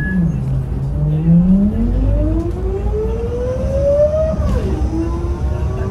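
City bus with a ZF Ecomat automatic gearbox accelerating, heard from inside the cabin: a loud transmission whine climbs steadily in pitch over a heavy engine rumble, then drops sharply about four and a half seconds in as the gearbox shifts up, and starts rising again.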